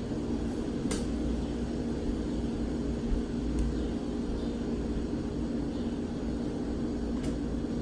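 Steady low machine hum of room tone, several fixed pitches held throughout, with a short click about a second in.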